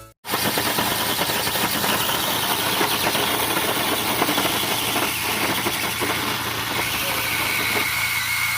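A car engine running steadily under a dense wash of noise, with voices mixed in.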